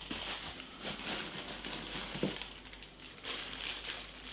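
Plastic packaging crinkling and rustling as bundled cables are handled and unwrapped, with a couple of light knocks.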